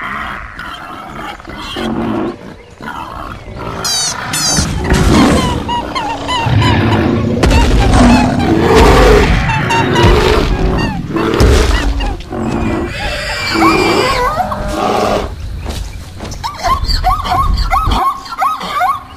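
A jumble of animal roars, grunts and calls over music, loudest from about five to twelve seconds in with a deep rumble underneath.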